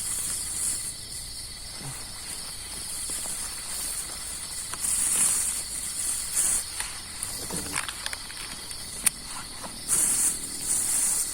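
Night insects, crickets among them, chirring steadily at a high pitch, swelling louder several times. Faint rustling through vegetation, with one sharp click about nine seconds in.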